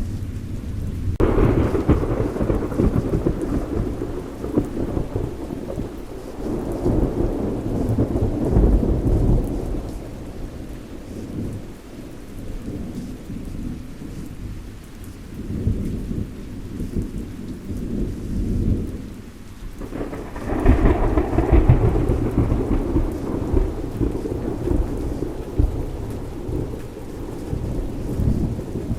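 Thunderstorm with steady rain: a sudden thunderclap about a second in rumbles away over several seconds, and a second loud clap about two-thirds of the way through rolls off the same way, while the rain keeps falling.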